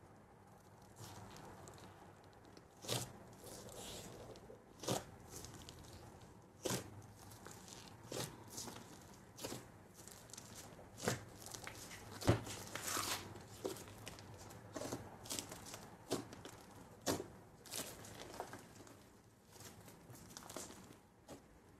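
Fluffy slime packed with foam beads being pressed and stretched by hand, crackling and snapping as it pulls apart. The snaps come about every second or two, with a soft crinkly hiss between them.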